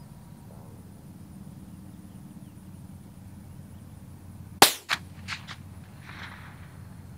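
A single .22 LR rifle shot from a scoped Crickett youth rifle: one sharp crack about four and a half seconds in, followed within the next second by a few fainter sharp reports.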